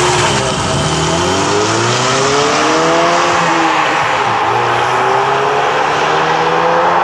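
2015–21 Ford Mustang EcoBoost's turbocharged 2.3-litre four-cylinder, fitted with an aftermarket 3-inch stainless downpipe and the stock exhaust, accelerating away. The engine pitch climbs, drops about four seconds in at a gear change, then climbs again.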